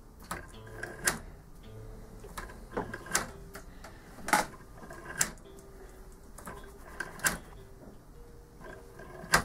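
Homemade pendulum clock built from clothes pegs and scrap, running: its detent-type escapement and clothes-peg wheel give sharp wooden clicks every second or two, some in quick pairs.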